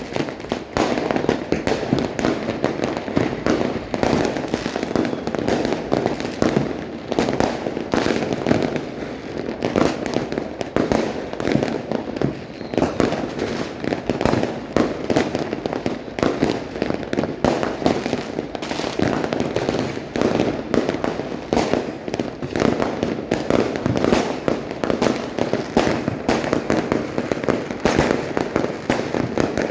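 Many fireworks and firecrackers going off at once in a continuous barrage of bangs, pops and crackles with no pause, merging into a steady rumbling din.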